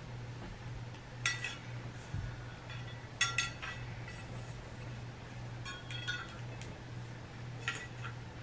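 Rose gold metal tiered tray being assembled: its plates and rod clink against each other in a handful of light, short-ringing clinks spread over several seconds.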